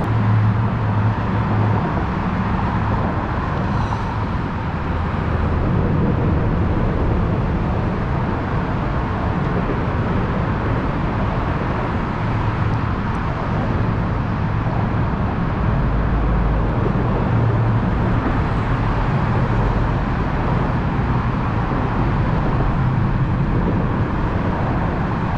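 Steady outdoor background noise: an even hiss with an uneven low rumble underneath, with no distinct events.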